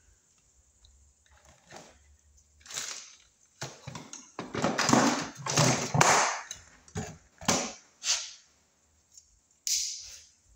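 10/3 cable with a bare ground being pulled through the wall opening into a sub panel box: a series of irregular scraping and rubbing strokes, loudest around the middle.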